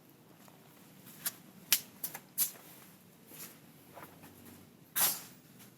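Small handling sounds: a few light clicks and taps, then a short, louder rustle about five seconds in.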